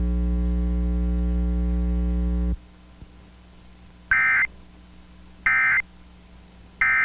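A steady electrical buzz with a low mains hum, which stops about two and a half seconds in. Then come short, shrill bursts of Emergency Alert System end-of-message data tones, each about half a second long and spaced a little over a second apart: two, and a third at the very end.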